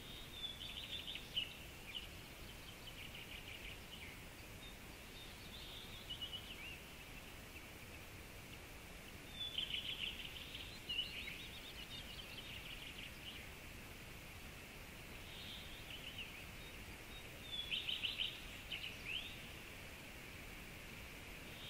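Songbirds singing in short trilled phrases, about six bursts of high song spaced a few seconds apart, over a steady hiss of running water.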